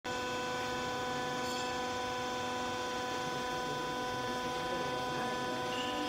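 Steady electric machine hum made of several steady tones, unchanging throughout, typical of a hydraulic baler's electric motor and pump running idle.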